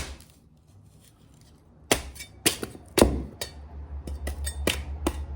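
Forged knife chopping into a coconut's husk to reach the shell: one sharp blow, a pause, then a run of blows that come quicker, about three or four a second near the end.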